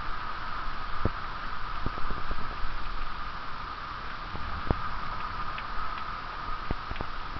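Heavy rain falling steadily, with irregular drips plinking and tapping close by.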